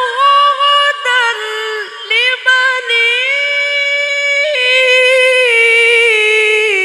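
A male Qur'an reciter's amplified voice in melodic tilawah, holding long high notes with quick ornamental turns and vibrato, the pitch stepping down gradually in the second half.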